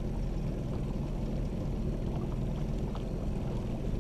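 A fishing boat's outboard motor running steadily at low trolling speed: an even, low hum.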